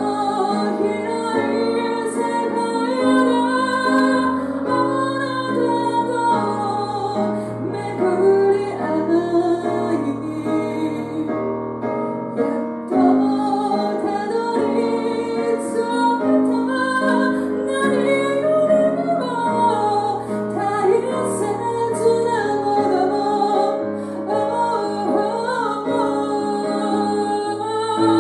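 A woman singing a slow ballad live, holding long wavering notes over a keyboard accompaniment of sustained chords and bass notes.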